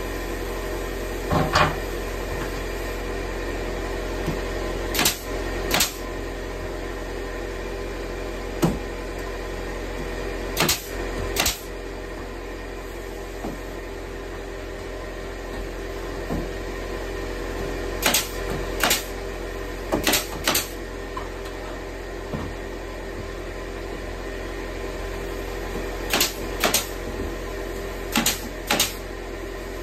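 Pneumatic nail gun driving nails into wooden ceiling boards: about a dozen sharp snaps, mostly in pairs under a second apart, a few seconds between pairs. A steady machine hum runs underneath.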